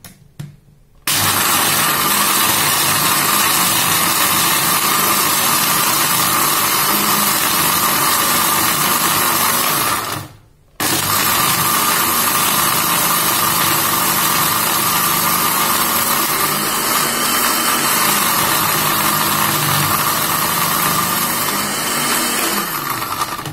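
Philips countertop blender running, crushing ice with red syrup and milk into a smooth slush. It starts about a second in, stops for about half a second near the middle, then runs again until just before the end.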